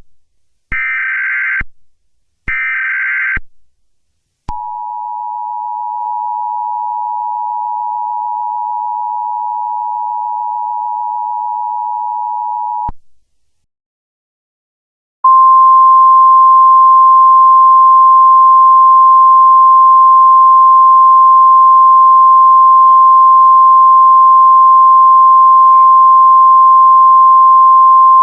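Emergency Alert System tones: short buzzy data bursts of the SAME header, then the two-tone attention signal held for about eight seconds. It stops, and after about two seconds of silence a single, louder steady alert tone begins and holds.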